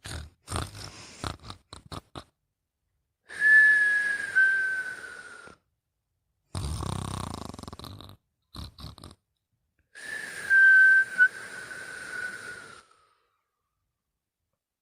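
Snoring in sleep with a whistling tone: two long breaths each carry a high whistle that slides slightly down in pitch, with a lower, rougher snoring breath between them. A few short snorts and clicks come in the first two seconds.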